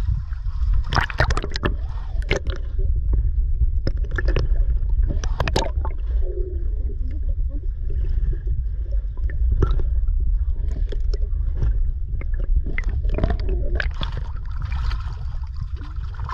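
Muffled underwater rumble of water moving past the submerged microphone, with scattered sharp clicks and pops.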